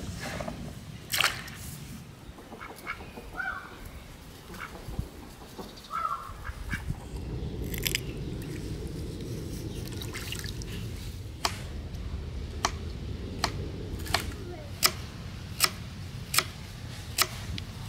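Kitchen knife slicing raw carrots into rounds on a wooden cutting board: sharp, evenly spaced chops about one every 0.7 seconds, starting after a few scattered clicks and crunches in the first half.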